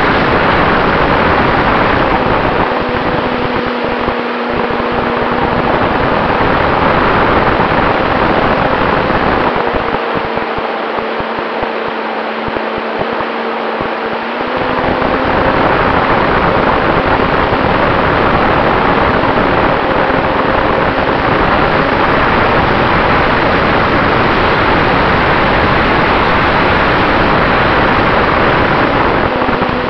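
Radio-controlled Cessna 188 model plane in flight, heard from its onboard camera: a constant rush of wind over the airframe with the steady hum of its motor and propeller underneath. Twice the wind noise eases and the propeller hum comes through more clearly.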